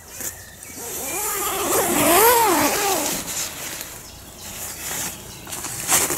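Nylon tent fabric rustling as it is handled. From about a second in, a pitched whine rises and falls in several swells and is loudest near the middle.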